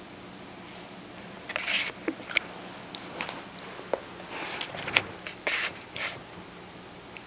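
A puppy chewing and gnawing on a chew toy: an irregular run of short scrapes and sharp clicks that starts about a second and a half in and stops about a second before the end.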